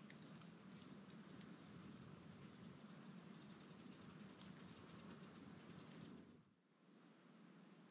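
Faint woodland ambience: rapid, high-pitched insect chirping, then after a brief dip about six and a half seconds in, a steady high trill typical of crickets.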